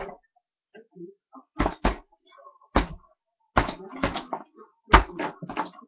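Boxing gloves landing on a hanging heavy punching bag: about eight hard thuds in quick combinations, starting a bit over a second in.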